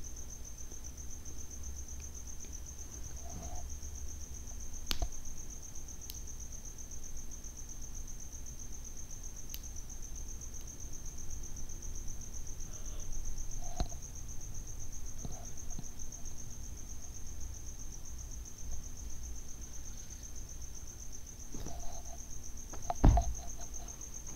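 A cricket trilling steadily at a high pitch, with a few scattered clinks of a steel spoon against a small glass bowl and a louder thump near the end.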